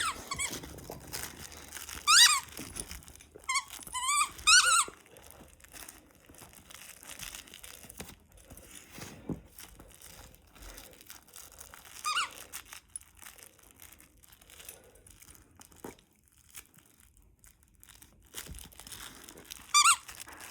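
Squeaky dog toy squeaking in short bursts: once, then a quick run of several squeaks, then two more single squeaks spread out later.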